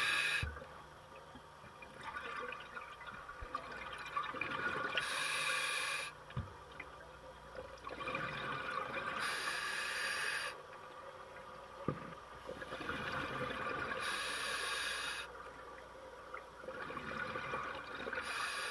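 Scuba diver breathing through a regulator underwater: a hissing inhalation, then a louder rush of exhaled bubbles, repeating about every four to five seconds, four breaths in all.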